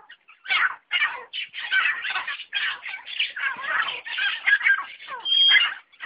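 Caged and loose francolins (teetar) calling in quick succession: a dense run of short, chattering squawks, with a clear high whistled note about five seconds in.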